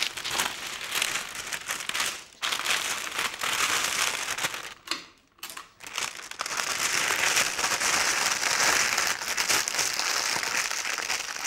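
Cellophane gift bag crinkling as it is gathered, folded and pressed tight under the hamper, with a short lull about five seconds in and louder crinkling over the second half.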